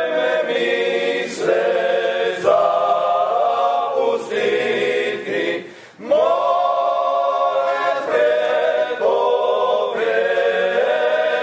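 A choir singing without instruments, in held phrases with a short break about six seconds in.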